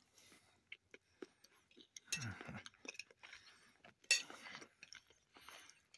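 Faint clinks of cutlery and dishes during a meal, with scattered small clicks and a sharper clink about four seconds in that is the loudest.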